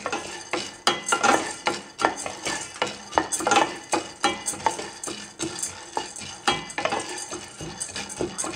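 Wooden spatula stirring dry fried gram dal (pottukadalai) around a stainless-steel saucepan, the hard split chickpeas scraping and rattling against the metal in repeated uneven strokes. The dal is being dry-roasted without oil, only until it warms through.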